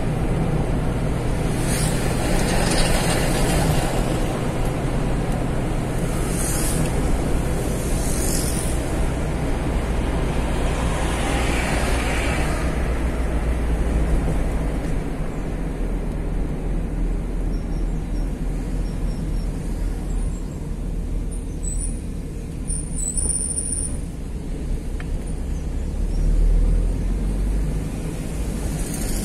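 Steady road and engine rumble from a car driving in town traffic. Several brief hissing rushes break through it in the first half.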